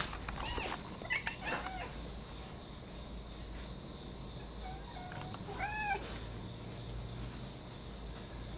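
Cat making threatening yowls in a standoff with another cat: a few short calls in the first two seconds, then a louder drawn-out yowl that rises and falls about five to six seconds in. A steady high-pitched drone runs underneath.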